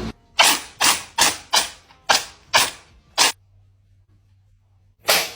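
A cat sneezing in a quick run: about seven short, sharp sneezes in three seconds, then another single sneeze near the end.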